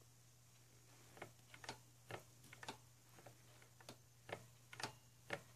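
Faint, light mechanical clicking from a BMX bike, roughly two clicks a second, starting about a second in.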